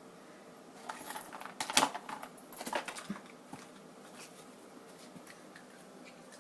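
A dog rummaging in a cardboard treat puzzle box: a cluster of rustles, scrapes and clicks from about one to three seconds in, then a few faint ticks.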